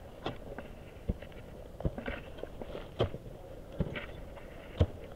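Ice axe and crampon placements striking firm snow on a steep slope: sharp crunching impacts, about seven in five seconds at an uneven pace, the loudest near the end.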